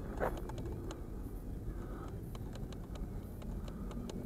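Wind buffeting the microphone in an open field, a steady low rumble, with scattered light clicks and ticks throughout.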